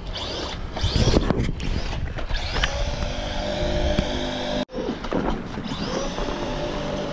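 Traxxas Maxx RC truck's brushless electric motor whining in rising sweeps as it is throttled, over a steady low rumble. The sound cuts out for a moment about two-thirds of the way through.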